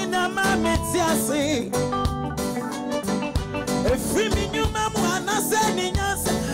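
Live band playing a Ghanaian gospel song, with guitar and drums, and a man singing over it into a microphone.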